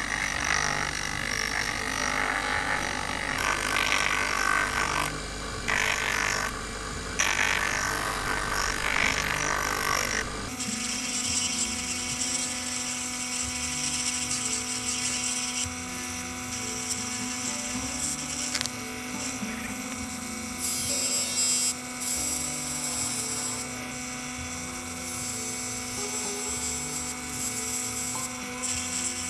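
Electric power tool working on a steel knife blade: rough, uneven noise for about ten seconds, then a steady motor whine with a constant hum through the rest.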